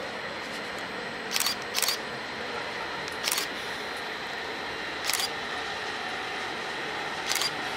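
Railway station noise: a steady rush of train sound broken by five short, sharp clicks about two seconds apart, the first two close together.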